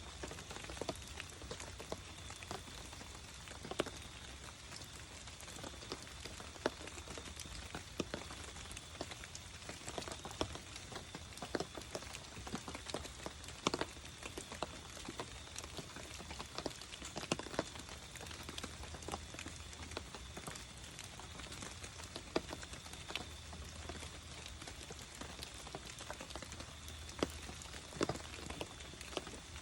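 Campfire crackling: irregular sharp pops and snaps, some louder than others, over a steady low hiss.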